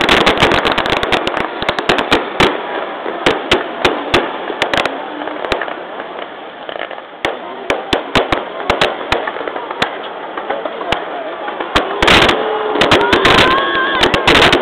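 Aerial fireworks going off: a dense run of sharp cracks and pops over the first few seconds, thinning to scattered bangs, then a heavier burst about twelve seconds in followed by more cracks near the end.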